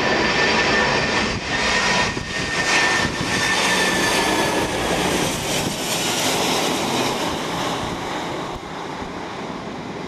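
A McDonnell Douglas MD-11 trijet freighter passing low overhead on final approach: a loud rush of jet engine noise with a thin high whine that slides slightly lower, easing off a little near the end as the aircraft goes by.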